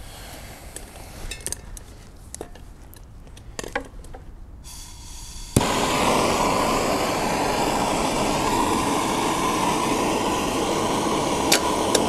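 Small clicks and knocks of hands working at the engine, then about five and a half seconds in a handheld gas torch lights with a sharp click and hisses steadily, used to warm a cold diesel engine so it will start.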